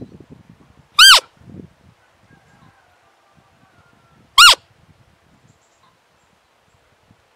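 Roe deer lure call blown close by: two short, loud, high squeaks, each rising and falling in pitch, about three and a half seconds apart, imitating a doe's fiep to draw a roebuck in during the rut. Faint rustling near the start.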